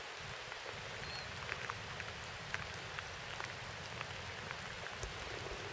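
Steady outdoor background hiss with scattered faint ticks and light clicks, and a brief faint high chirp about a second in.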